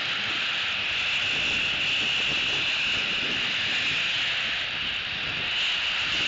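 Steady hiss of rain falling, with wind moving through the pine needles.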